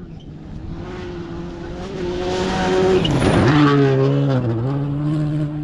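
A rally car at speed passes close by: its engine note grows louder to a peak about three seconds in, drops in pitch as it goes by, dips briefly about a second later as the driver lifts or shifts, then carries on steady as it pulls away.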